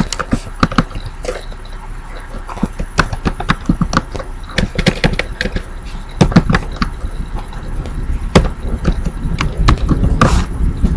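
Typing on a computer keyboard: irregular runs of keystroke clicks with short pauses between words.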